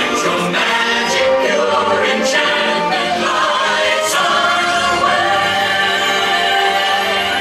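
Parade soundtrack music with a choir singing held, layered notes, playing steadily and loud.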